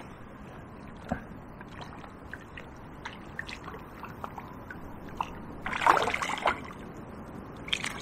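A small chub splashing at the river's surface as it is reeled in on the line: a short splash about six seconds in and another just before the end, with faint scattered ticks before them.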